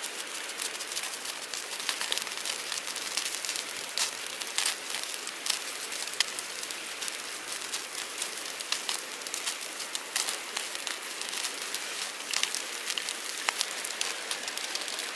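Meat sizzling on a grill net over a campfire, a steady hiss with frequent sharp pops and crackles.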